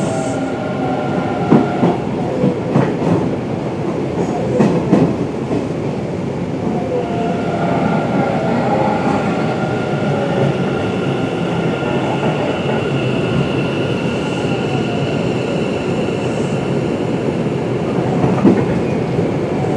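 Hanshin 1000 series electric train running, with the whine of its Mitsubishi IGBT-VVVF inverter and traction motors over the rumble of the wheels. There are sharp clicks of wheels over rail joints, mostly in the first five seconds, and a steady whine from about seven seconds in.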